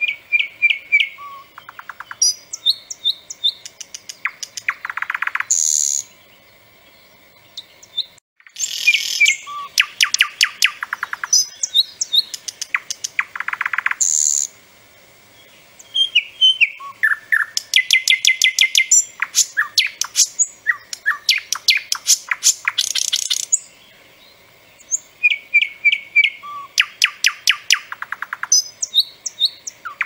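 Thrush nightingale singing: loud phrases of fast repeated notes and rattles, each lasting a few seconds, with pauses of a second or two between them.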